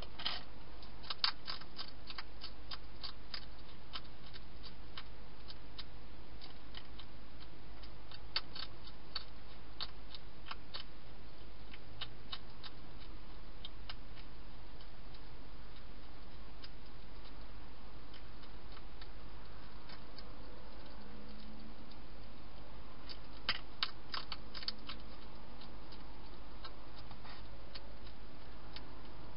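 Wild hedgehog eating dry food in a plastic feeding box: bursts of small crisp crunching clicks, near the start, again about eight seconds in and again about twenty-three seconds in, over a steady low electrical hum.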